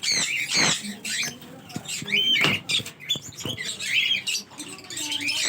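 Parrots calling: a continuous run of short, high, squeaky chirps and squawks.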